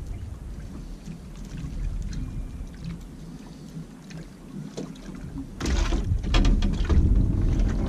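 Wind and water lapping around a small drifting open boat, with faint ticks of fish and tackle being handled. About two thirds of the way in comes a louder burst of repeated knocks and splashing as mackerel are unhooked and put into a bucket.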